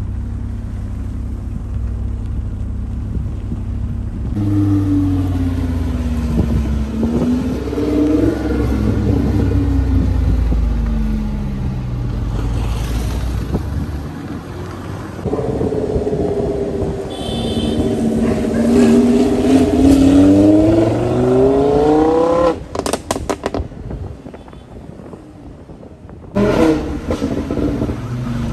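Lamborghini Huracán's V10 through an aftermarket Fi valved exhaust, rumbling at low speed and then revving up and down as the car is driven. About two-thirds of the way in there is a long rising rev, the loudest part, which cuts off suddenly. The engine is quieter for a few seconds and picks up again near the end.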